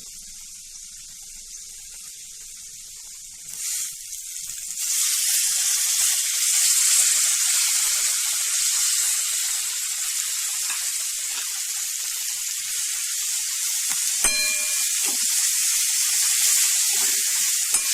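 Fresh fenugreek (methi) leaves frying in hot oil with onions and spices in a kadhai. A steady sizzle swells loud about five seconds in as the leaves go into the oil, with a single sharp knock partway through.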